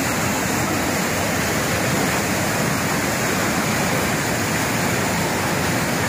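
Fast whitewater mountain river rushing over rocks: a steady, unbroken noise of running water.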